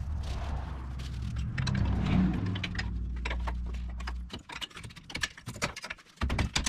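Steady low rumble that cuts off about four seconds in, then a quick run of metallic clicks and taps from hand tools worked against a rusty front brake caliper.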